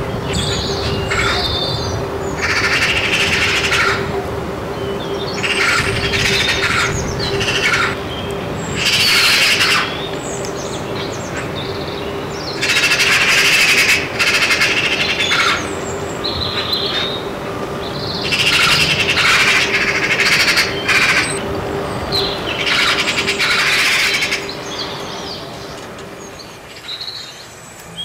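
Eurasian magpies giving harsh chattering calls in repeated bursts of one to two seconds, with short pauses between, dying away near the end. A faint steady low tone hums underneath.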